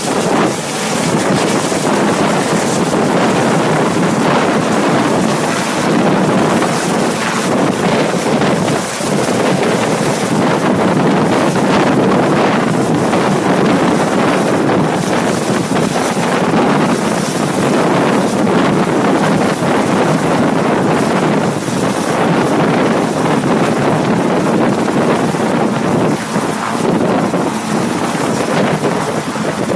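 Sikorsky VH-3D Sea King helicopter (Marine One) landing: loud, steady rotor and turbine noise, with rotor downwash buffeting the microphone as it settles onto the grass near the end.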